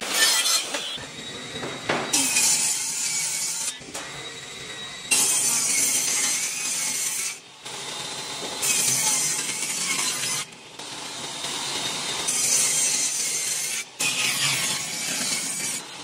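Power saws with circular blades, a mitre saw and a table saw, cutting parquet boards. The sound is a string of high-pitched cutting passes, each a second or two long, broken off abruptly between them.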